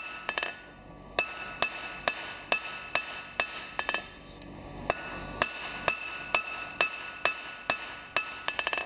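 Hand hammer forging a hot 16 mm square steel bar into a square taper on an anvil. The blows come about two a second and the anvil rings between them. There are short pauses about a second in and again around four seconds, and a quick run of light taps near the end.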